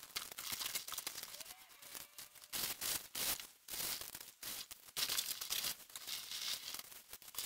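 Cardboard parcel being unpacked: tape torn off, flaps opened and packing material rustling and crinkling in irregular bursts.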